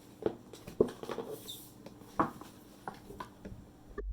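Unboxing handling noises: a few short taps and scrapes of cardboard packaging and paper inserts being handled, with a short low thump and a sudden cut-off at the end.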